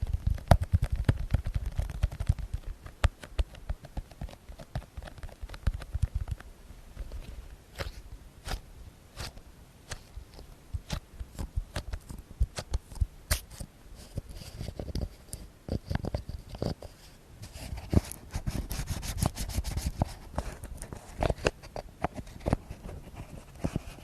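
ASMR tapping close to the microphone: many quick, sharp taps in irregular runs, with bursts of low wind rumble on the microphone.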